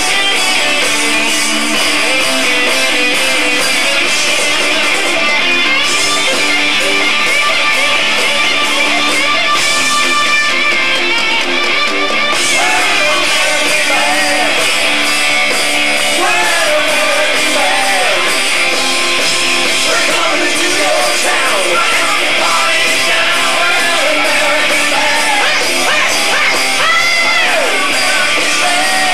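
Live rock band playing loudly: electric guitars over bass and drums, through a large outdoor PA.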